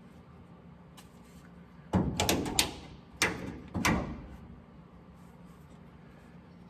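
A burst of clattering knocks, then two more single knocks, from tools or parts being handled and set down.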